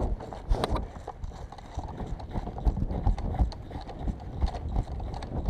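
Footsteps on snow, about two steps a second, heard from the walker's own body-worn camera.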